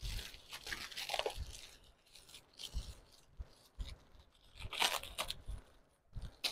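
Clear plastic wrapping being torn and crinkled by hand while a perfume package is unwrapped, in uneven rustling bursts, the loudest just under five seconds in.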